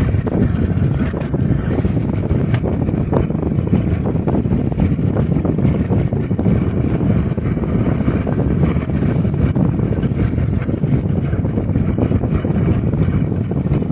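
Wind blowing across the microphone, a steady low rumble with a few faint knocks.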